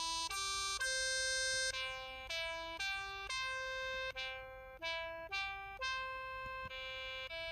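KTF-TR2000 mobile phone's keypad button sounds: a run of about a dozen short synthesized electronic notes, one after another at changing pitches.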